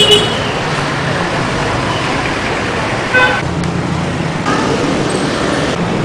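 Street traffic noise, a steady rumble of passing cars and motorbikes, with a short vehicle horn toot about three seconds in.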